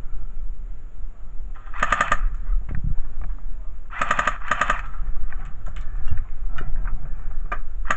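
Airsoft guns firing three short full-auto bursts, each a rapid rattle of shots: one about two seconds in and two close together around four seconds in. A few single sharp shots or clicks follow later.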